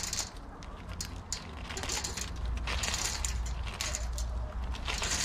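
Hen pecking at treats scattered on straw-covered ground: irregular sharp pecking clicks and straw rustling, over a low rumble.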